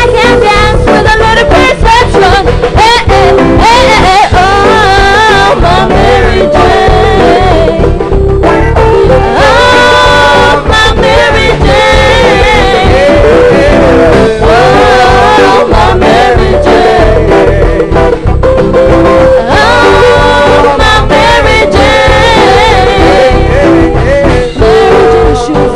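Live reggae band playing a steady beat, with voices singing over it.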